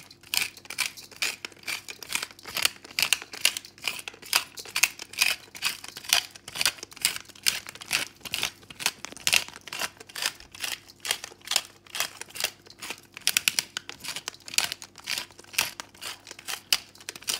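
Pepper mill grinding black peppercorns over raw chicken, a fast continuous run of dry clicks.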